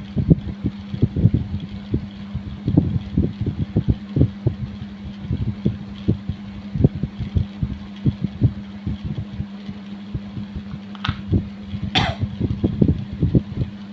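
Kerokan: a coin scraped over the skin of the chest in repeated, irregular strokes, several a second, over a steady low hum. A couple of brief sharper sounds come near the end.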